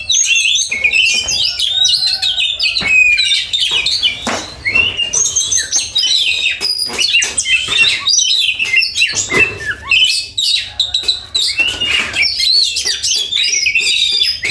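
Oriental magpie-robin (kacer) singing loudly in a fast, unbroken run of varied whistled notes and glides.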